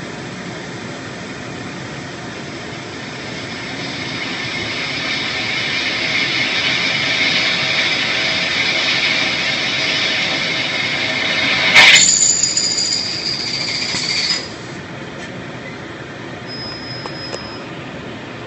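CNC plasma cutting and drilling machine at work: from about four seconds in, a noisy squealing sound builds and grows louder. It peaks with a sharp crack near twelve seconds, then a high whine holds for about two more seconds and stops suddenly, leaving a steady background noise.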